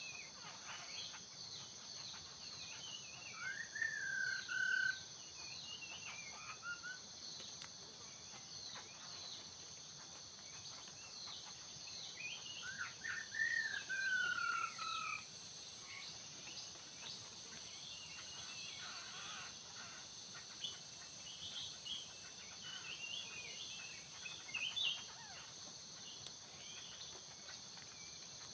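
Laughingthrushes calling: scattered quick chirps and two louder slurred whistles, one about four seconds in and one about thirteen seconds in, over a steady high-pitched insect drone.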